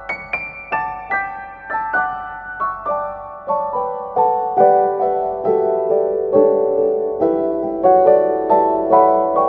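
Background piano music: a slow melody of single struck notes, about two or three a second, each ringing and fading, moving into a lower register partway through.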